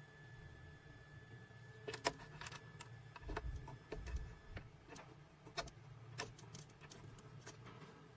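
Faint, irregular clicks and taps with a couple of low thuds a little past three and four seconds in: a metal key and the key cutting machine's clamp being handled.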